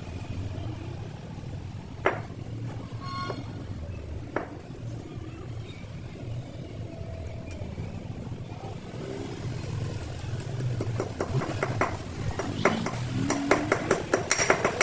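Two sharp metal knocks and a brief ringing ping over a steady low hum, then a fast run of clicks that grows denser with a rising whine near the end.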